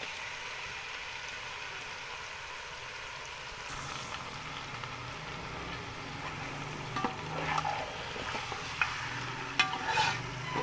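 Raw chicken pieces sizzling in hot oil with ginger-garlic paste, a steady hiss. From about seven seconds in come a few knocks and scrapes as the pieces are turned with a metal slotted spoon.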